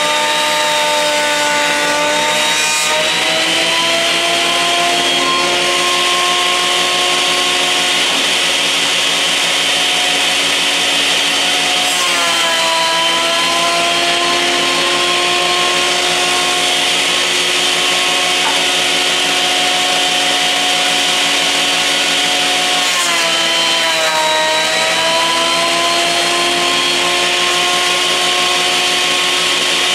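Portable thickness planer running and planing short sipo mahogany boards, fed one after another. Its motor pitch drops as each new board enters the cutterhead, about every ten seconds, and holds lower while the board is cut.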